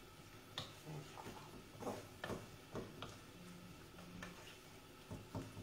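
A few faint, irregular clicks and taps of a utensil against a frying pan as rice is stirred, over quiet room tone.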